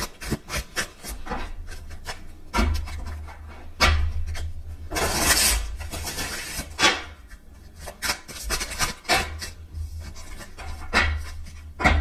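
A deck of angel-number cards being shuffled by hand: cards rubbing and slapping together in many short strokes, with a longer rasping run about five seconds in.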